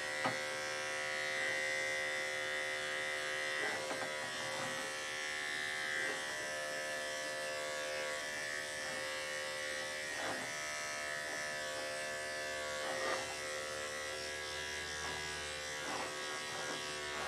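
Electric dog grooming clippers running with a steady hum while trimming the dog's hair for a sanitary clip.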